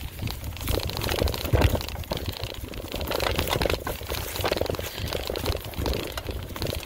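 Mountain bike rolling along a dirt trail: tyres crunching and crackling over the ground in an uneven stream, with wind rumbling on the microphone.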